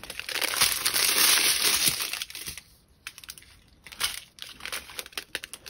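Small plastic bags of diamond-painting drills crinkling as they are handled, loud for the first two and a half seconds, then quieter, with scattered short clicks and rustles near the end.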